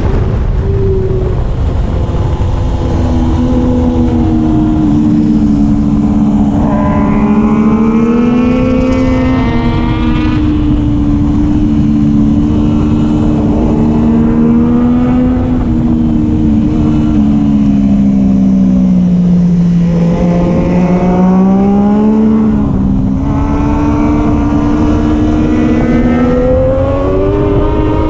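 Triumph Daytona 675R's 675 cc inline-three engine under race load, revs rising and falling with throttle and gear changes. The revs sink to their lowest about twenty seconds in, then climb again, over a steady rush of wind noise.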